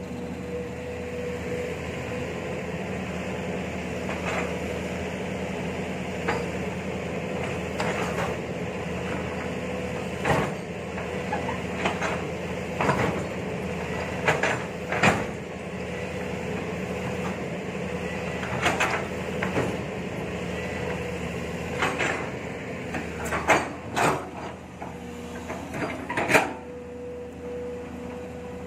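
Long-arm SK07 excavator's diesel engine running steadily with a constant whine, while the bucket and arm linkage give sharp clanks and knocks as it digs and spreads earth. The knocks come more often after about ten seconds in.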